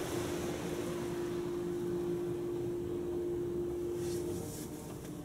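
Ryko Ultrasonic touch-free car wash heard from inside the car's cabin: water spraying over the windshield and roof over a steady machine hum, which cuts out about four seconds in.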